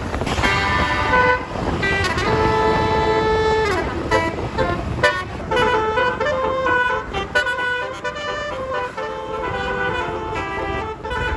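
A tour bus's basuri multi-tone musical air horn plays a melody over a low rumble. It opens with a long held chord that slides down in pitch about four seconds in, then runs into a string of short notes that change pitch several times a second.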